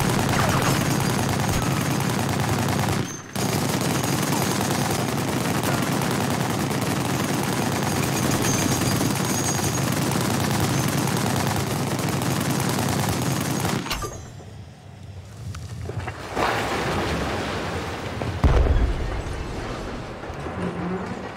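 Long bursts of rapid machine-gun fire, with a short break about three seconds in. The firing stops a little past halfway, then a shorter stretch follows, ending in a deep boom.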